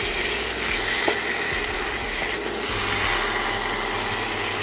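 Chicken in thick coriander masala frying in a kadhai with a steady sizzling hiss as it is stirred with a wooden spatula, at the well-roasted (bhuna) stage.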